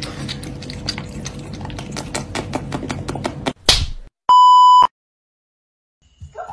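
Cat lapping water from a glass: a quick run of small wet clicks, about five a second, ending in a short sharp noise as the cat lunges. A loud steady electronic bleep of about half a second follows.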